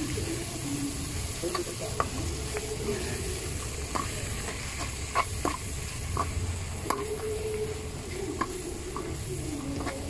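Long metal ladle stirring and scraping in an aluminium wok, with irregular clinks of metal on metal, while mushrooms and mixed vegetables fry in melting margarine with a low sizzle.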